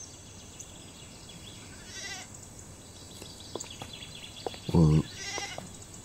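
A farm animal bleating several times in short, wavering calls, the loudest one just before five seconds in.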